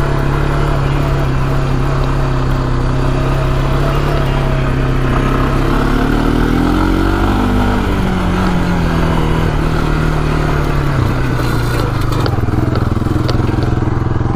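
Honda Fourtrax 300 ATV's air-cooled single-cylinder four-stroke engine running steadily after warm-up on a replacement CDI. About six seconds in it revs up briefly, then settles back to its steady running over a few seconds.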